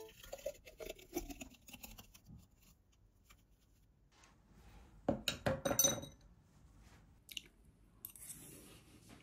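A thick blended smoothie pouring from a glass blender jar into a drinking glass in soft glugs, then a cluster of sharp glass-on-glass clinks about five seconds in.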